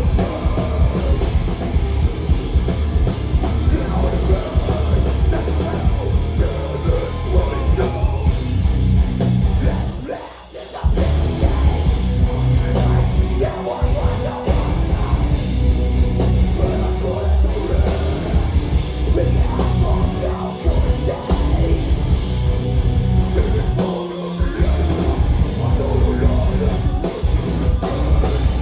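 A metalcore band playing live and loud: distorted guitars, pounding drum kit and harsh shouted vocals. The band stops for about a second roughly ten seconds in, then crashes back in.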